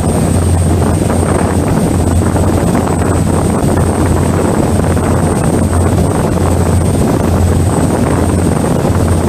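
A passenger ferry's engines running steadily at cruising speed: a constant low drone under a rushing noise of wind and water.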